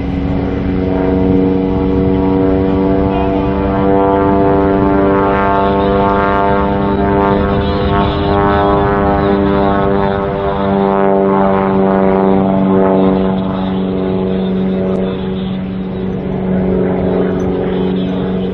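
Zlin 142C light aerobatic plane flying overhead, its six-cylinder inverted inline piston engine and propeller giving a loud, steady drone. The pitch dips slightly about ten seconds in as it passes.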